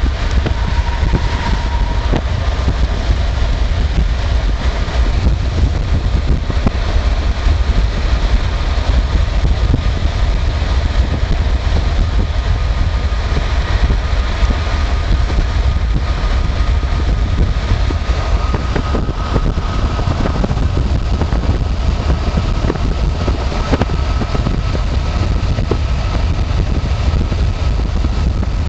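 Road noise from a car driving at highway speed on an interstate: a steady, heavy low rumble of tyres and engine.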